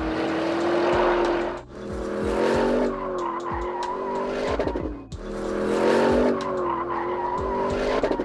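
Porsche Cayenne Turbo GT's 4.0-litre twin-turbo V8 running hard as the SUV corners on a track, its pitch rising and falling, with tires squealing. The sound breaks off and starts again twice.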